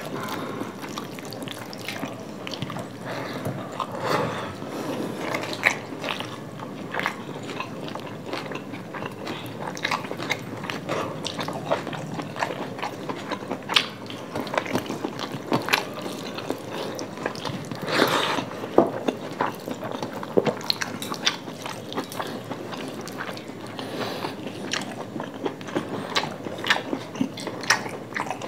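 Two people eating fried rice and chilli chicken by hand from metal plates: close-up chewing and wet mouth sounds mixed with squishing of rice and many irregular sharp clicks and smacks.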